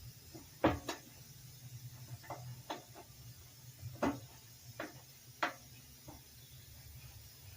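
Several separate knocks and clicks of tools or parts being handled, the loudest near the start and about four seconds in, over a low steady hum.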